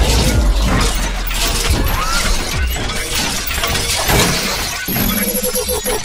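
Intro sound design: a dense run of shattering, crashing hits and whooshes over music, with a heavy low rumble at the start.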